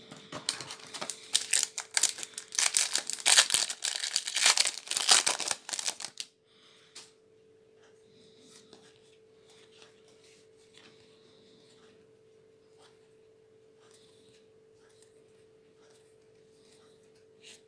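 A booster pack's foil wrapper being torn open and crinkled for about six seconds, then soft, faint handling of the cards as they are sorted through. A faint steady hum runs underneath.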